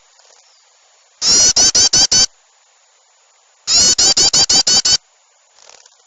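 Bird-lure recording of a small songbird's rapid chattering alarm call, played loud. There are two bursts of six or seven quick, high notes, about a second long each: one a little over a second in and one near four seconds. A faint scratchy sound follows near the end. It is a lure call meant to draw small birds in.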